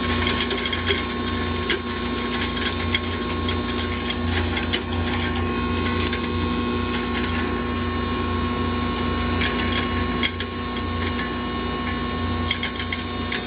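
Singhara (water chestnut) flour grinder machine running: a steady motor hum with rapid, irregular rattling clicks throughout.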